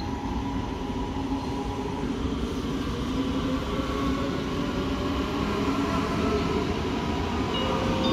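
Red DB Regio train pulling into the station, its running noise growing steadily louder as it approaches.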